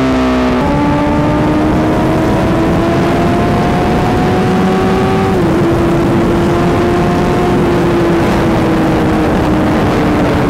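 Honda CBR1000RR superbike's inline-four engine running at high speed under heavy wind rush. Its pitch climbs slightly, dips about halfway through, then slowly falls as the bike slows from over 200 km/h.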